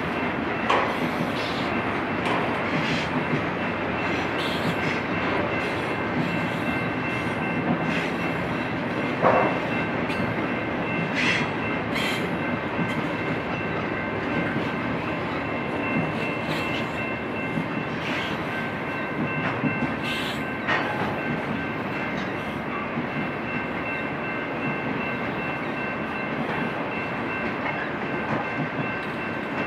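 BNSF double-stack intermodal container train rolling past: a steady rumble of wheels on rail, with scattered sharp clanks from the cars and a thin, steady high-pitched squeal.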